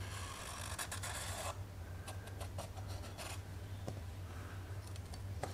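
Felt-tip marker drawing an outline on an olive-wood handle scale, its tip scratching across the wood in two main strokes, the first about a second and a half long, with a few short taps.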